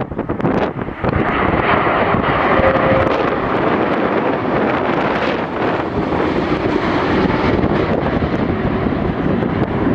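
Airbus A330-300 twin-jet airliner on final approach with its landing gear down, passing low overhead: a steady jet engine rush that grows louder about a second in, with wind buffeting the microphone.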